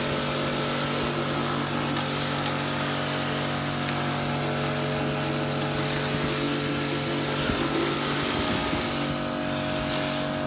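Kärcher K4 electric pressure washer running steadily, its motor and pump humming under the loud hiss of the high-pressure water jet spraying onto a brick wall.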